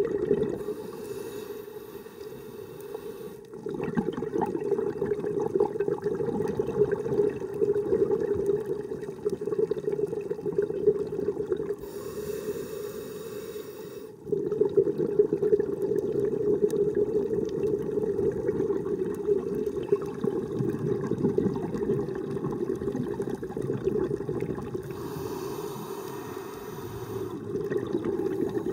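A scuba diver breathing through a regulator underwater. A short hiss of inhalation is followed by a long stretch of bubbling as the exhaled air streams out. The cycle repeats, with inhales near the start, about halfway through and near the end.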